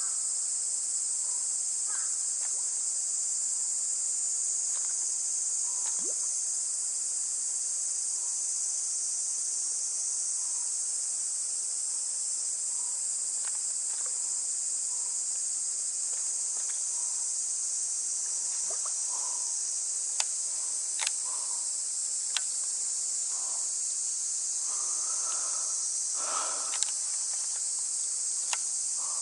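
A steady, high-pitched chorus of insects. A few sharp clicks come in the second half.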